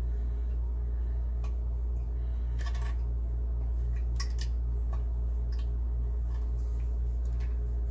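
A few light, scattered clicks and ticks of a plastic pop-up drain linkage piece being slid onto its metal lift rod, over a steady low hum.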